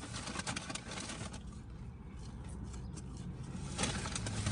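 A person eating French fries close to the microphone: irregular soft clicks and smacks of chewing and mouth noise, over a steady low hum.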